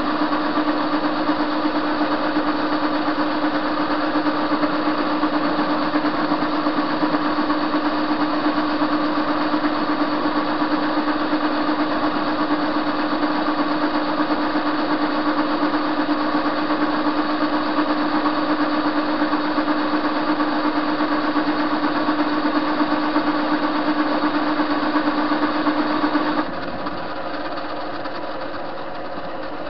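Soviet TV-16 school lathe running steadily while turning a metal workpiece: a continuous machine hum with a strong steady tone from the motor and gearing. Near the end the tone stops and the sound drops to a quieter steady running.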